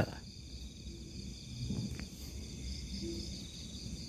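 Steady high-pitched chorus of night insects, over a faint low rumble.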